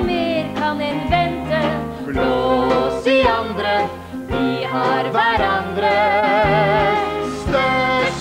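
A woman singing a lively show tune over a band with a bass line that changes note about once a second, with vibrato on long held notes near the end.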